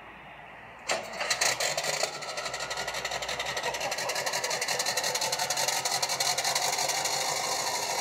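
Diesel engine starting: it catches about a second in with a loud, uneven burst, then settles into a steady, evenly pulsing idle.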